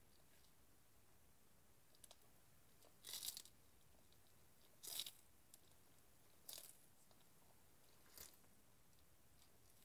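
Tortoise biting and chewing celery leaves and stalks: short, faint crunches, five in all about one and a half seconds apart, the loudest two near the middle.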